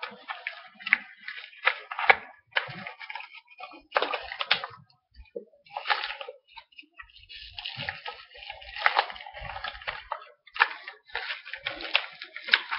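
Packaging being rustled and crinkled by hands digging into a parcel, in irregular bursts with short pauses between them.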